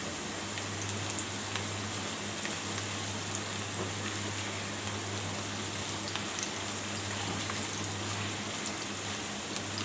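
Sliced onions sizzling in hot soybean oil in a nonstick frying pan: a steady sizzle with small scattered pops, stirred with a silicone spatula.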